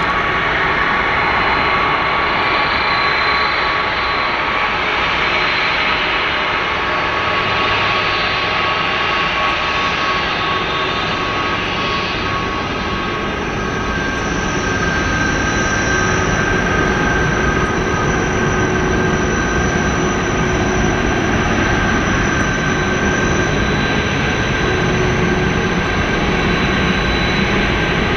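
Airbus A330-300's Pratt & Whitney PW4000 turbofans running at low taxi thrust: a steady jet roar with high whining tones, the highest whine growing clearer about halfway through.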